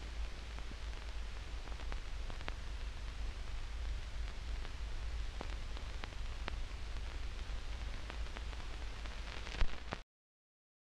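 Run-out noise of a 1943 film's optical soundtrack: steady hiss over a low hum, with scattered clicks and a louder pop near the end. It cuts off suddenly to dead silence about ten seconds in.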